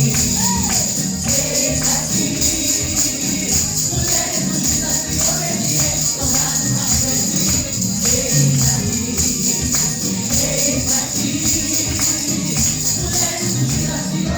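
Music: a Christian worship song with singing over a steady beat.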